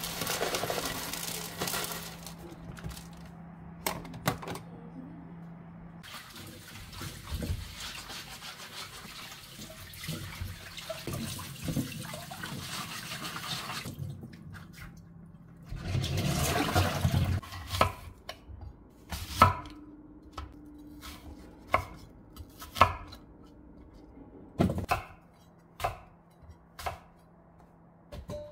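Coffee beans rattle as they are poured from a bag into a coffee machine's bean hopper. Then a kitchen tap runs steadily while apples are washed in the sink. In the last third come a series of sharp, irregular knocks as apples are handled and cut with a knife on a wooden cutting board.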